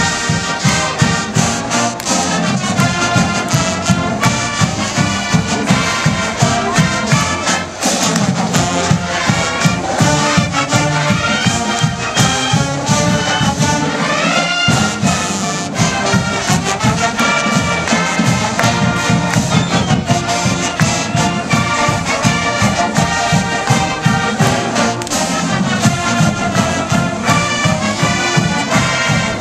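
Marching band playing a loud, up-tempo tune, with trumpets and trombones carrying the melody over a fast percussion beat.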